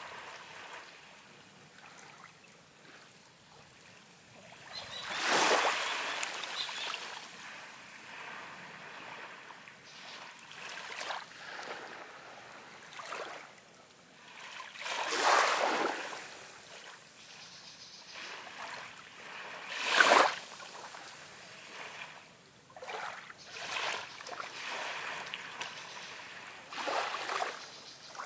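Small waves lapping and washing up a sandy beach in calm sea, with louder surges of wash about 5, 15 and 20 seconds in.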